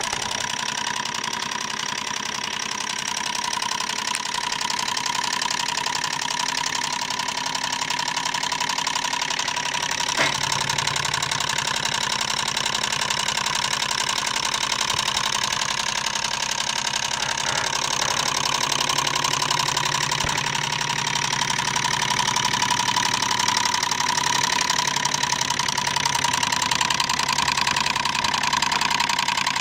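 Antique Bing hot-air (Stirling) engine running steadily: a rapid, even mechanical clatter from its piston and crank, with a steady whining tone.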